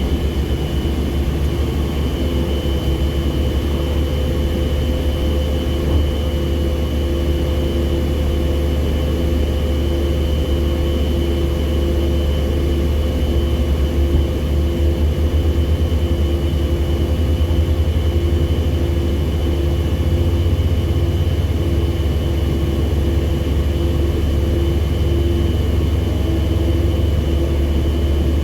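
SANY SCC1500 crawler crane's diesel engine running steadily, a low heavy drone with a constant high whine over it.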